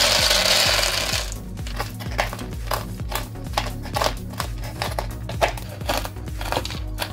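Roasted peanuts poured out of a bowl onto a wooden cutting board, then a large kitchen knife chopping them on the board, about three chops a second. Soft background music plays underneath.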